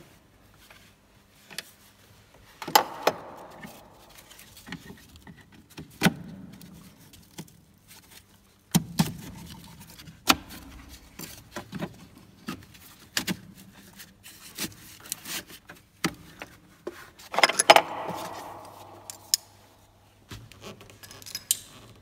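Gloved hands working on fuel-line fittings and a wiring connector in a car's engine bay: irregular clicks, knocks and rattles of plastic and metal parts, loudest in a burst of rattling near the end.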